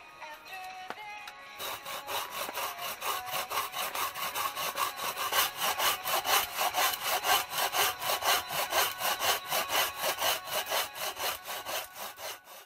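Hand saw cutting through a log in quick, even, rasping strokes, starting about a second and a half in after a short stretch of music.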